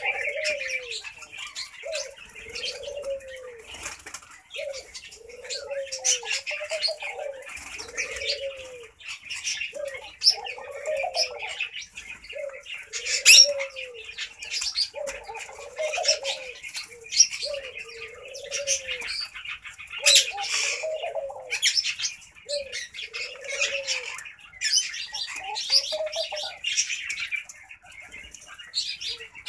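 Laughing dove cooing: a long series of low, rising-and-falling coo notes in short phrases. Higher chirping runs over it, with a few short, sharp loud sounds, the loudest about a third of the way in and again past two-thirds.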